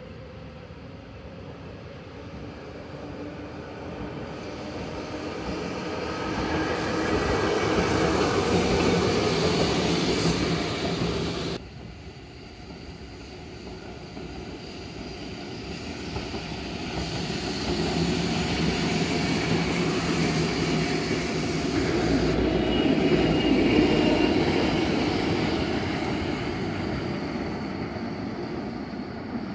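Two-car Randen (Keifuku Electric Railroad) streetcars, single cars coupled in multiple, running past on street track: a rumble of wheels and motors that swells, with a low steady hum at its loudest, then fades. This happens three times, and the first pass cuts off abruptly about twelve seconds in.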